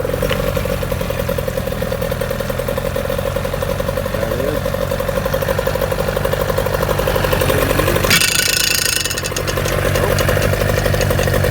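1997 Johnson 15 hp two-stroke outboard motor running steadily just after catching on a pull start, freshly tuned up with its carburetor serviced. About eight seconds in, a short burst of higher-pitched hiss rises over the engine note.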